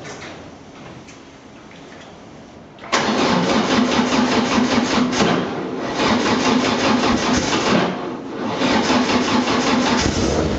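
Lotus race car's engine catching suddenly about three seconds in, after a few faint clicks, then running loudly. The revs sag and pick up again twice.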